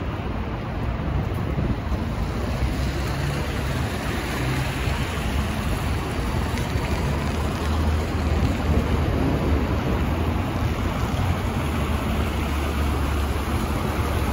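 City transit bus approaching and passing close by on a wet, slushy street: its engine drone under a steady hiss of tyres through slush. The sound grows louder about halfway through as the bus draws near.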